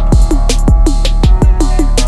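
Electronic drum and bass music with a fast, steady beat, sharp drum hits and deep bass kicks that fall in pitch.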